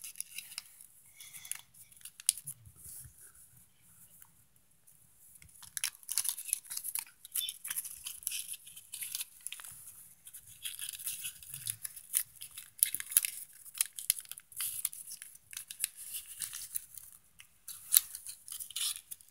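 Plain paper crinkling and rustling as hands fold and tuck the flaps of an origami blow-up cube, in many short crackles with a quieter stretch a few seconds in.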